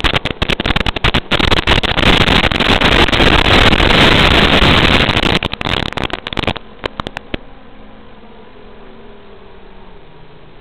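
Loud hiss and crackle of analog FPV video-link static as the quadcopter's signal breaks up. It dies down after about six and a half seconds, when the picture clears, to a low hiss.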